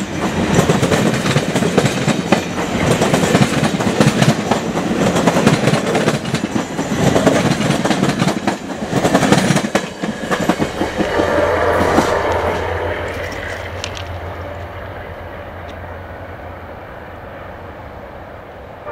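Amtrak passenger train passing close at speed, its cars' wheels clattering over the rail joints in a loud rush. After the last car goes by, about ten seconds in, the sound fades steadily as the train moves away.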